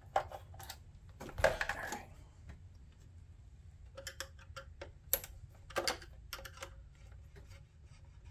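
Scattered small clicks and rattles of hands working plastic parts and a ribbon-cable connector inside an opened patient monitor, with a brief louder rustle about a second and a half in and a couple of sharper clicks past the middle.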